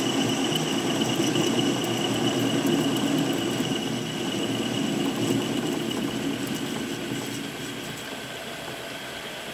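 Centre lathe running while a single-point tool faces the end of a rotating metal bar, fed across by hand: a steady machine hum with a thin high whine and the noise of the cut. The sound drops off about three-quarters of the way through as the facing cut finishes.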